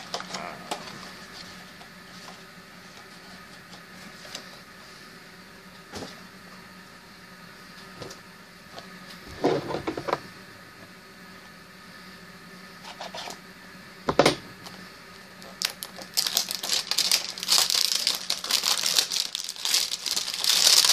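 Hands handling and opening a Funko Mystery Mini blind box: scattered light clicks and taps of cardboard and plastic, with a couple of louder rustles, then steady crinkling of the packaging from about three-quarters of the way through.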